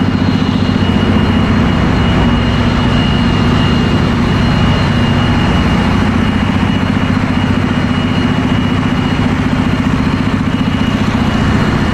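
Steady, loud machinery din of a ship's engine room, dominated by the running diesel generators, with a low hum and a thin high whine held throughout.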